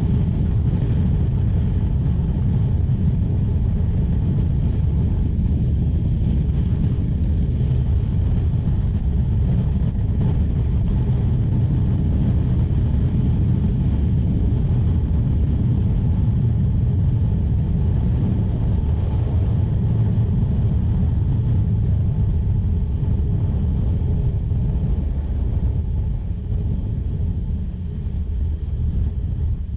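Steady low rumble of wind and engine from a 1984 Honda VF500F Interceptor, a 498cc V4 motorcycle, cruising at freeway speed. The rumble eases a little near the end as the bike slows.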